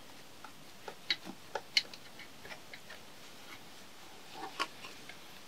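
Faint, irregular light clicks and taps of gloved hands working on fittings under the intake manifold of a BMW M50B25 engine.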